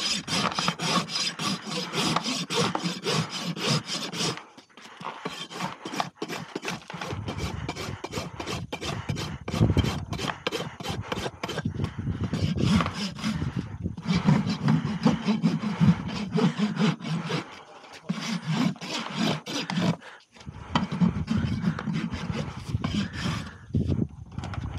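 Steel farrier's rasp filing a horse's hoof wall: repeated quick rough strokes, stopping briefly a few times between runs.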